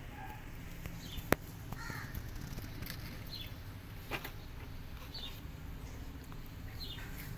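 Short, high-pitched chirping calls every second or two, each slightly falling in pitch, over a low steady hum. A single sharp click about a second in is the loudest sound.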